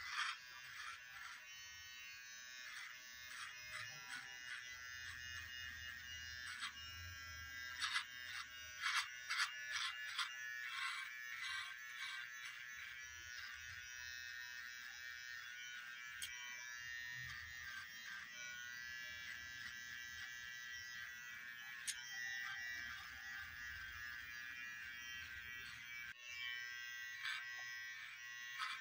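Electric hair trimmer buzzing steadily as it cuts along the sideburn, around the ear and down the neckline, with scattered sharp clicks, most of them about 8 to 11 seconds in.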